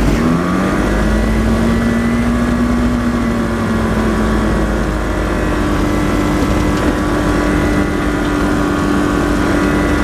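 Challenger ultralight aircraft's engine and propeller running while taxiing on grass. The engine note rises in the first second, then holds steady, with a small step up about halfway through.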